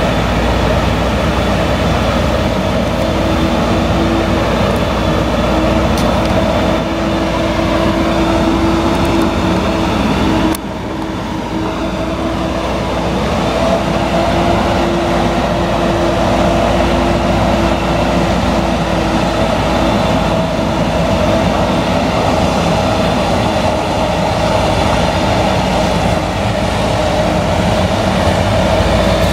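Claas Jaguar 970 forage harvester with its MAN V8 engine under load, chopping maize: a steady heavy drone with a constant whine running over it. The level drops abruptly about ten seconds in, then carries on unchanged.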